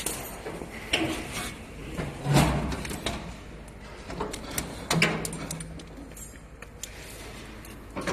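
A few separate knocks and light metallic clatter from work on a stainless-steel packing machine frame, the loudest a dull thud about two and a half seconds in, with small clicks a little after the middle.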